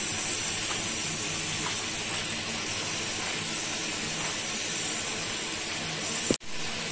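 Steady, even background hiss, broken by a brief dropout near the end.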